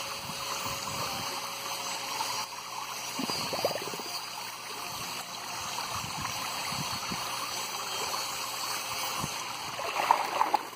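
Thin water jets from a perforated PVC pipe spraying into a fish tank: a steady splashing trickle. About ten seconds in, a dip net sweeps through the water with louder splashing.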